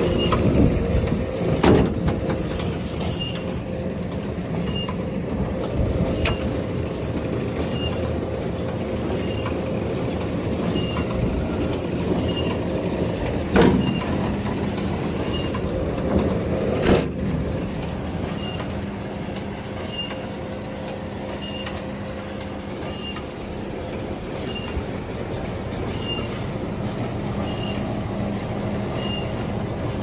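An engine runs steadily, with a short high beep repeating about every second and a half. Sharp metallic clunks stand out about two, fourteen and seventeen seconds in; the loudest comes as a spanner turns the latch on a Greenland round baler's red side panel.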